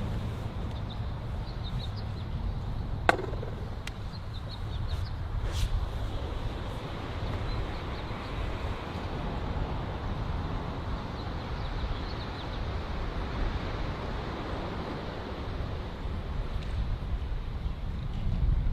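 Steady low rumble with faint high chirps scattered through it, and one sharp click about three seconds in.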